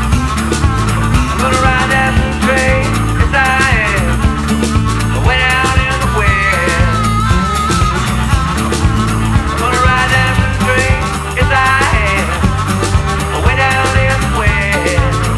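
Band recording of a rock song with a steady drum beat under a bass line, and a melody line that slides in pitch above them.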